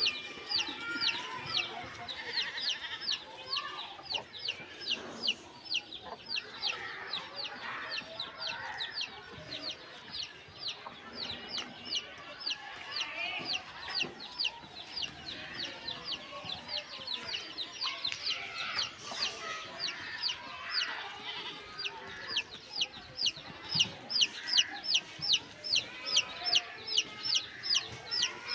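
A rooster and hen clucking, with a steady series of short, high, falling chirps, about three a second, going on behind them.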